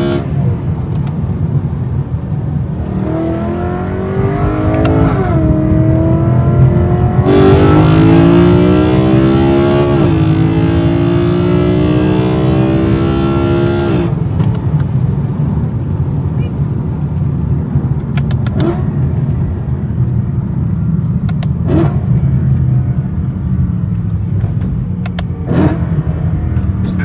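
BMW E92 M3's S65 V8 accelerating hard, its intake noise loud through a carbon fibre cold air intake and plenum. The revs climb briefly, drop at a shift, then climb in one long pull until the throttle is lifted about halfway through. The engine then settles to a steady cruise, with a few sharp clicks.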